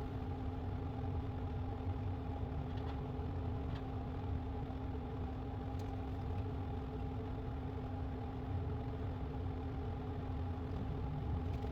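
An engine idling steadily, a constant hum over a low rumble.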